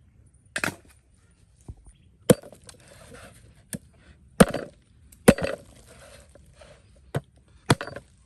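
Chopping: about seven sharp strikes at uneven intervals, some followed by a brief rattle.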